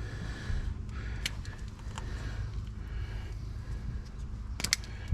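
A few sharp metallic clicks of hand tools being handled, a single one about a second in and a quick pair near the end, over a steady low hum.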